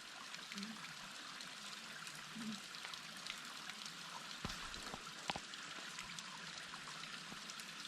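Escondido Falls waterfall running with a light flow after rain: a steady wash of falling and splashing water. Two faint sharp clicks come about halfway through.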